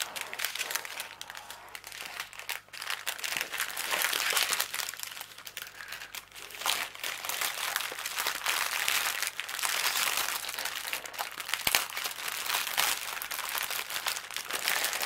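Clear plastic bags crinkling and rustling in uneven bouts as small packets of diamond painting drills are handled and slid into a larger plastic bag.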